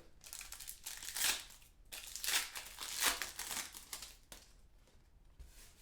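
A foil trading-card pack wrapper crinkling and tearing as it is opened by hand, in several rustling bursts that die down after about four seconds.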